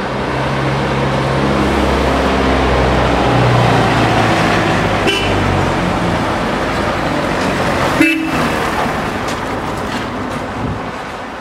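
Street traffic: a heavy vehicle engine running close, swelling about two to four seconds in, with short car-horn toots about five seconds in and, louder, about eight seconds in.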